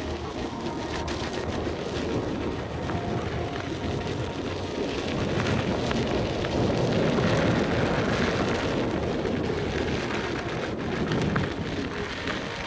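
Steady rushing noise of wind buffeting the microphone and an electric unicycle's tyre rolling over a dirt singletrack trail, swelling louder in the middle.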